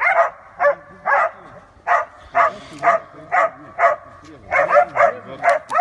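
Young hunting dogs barking hard in a steady run, two or three barks a second: baying at a wild boar.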